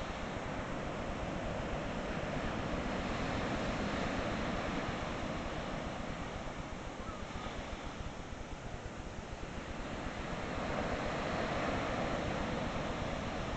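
Steady wash of ocean surf breaking on a long beach, mixed with wind buffeting the microphone. It eases a little past the middle and swells again near the end.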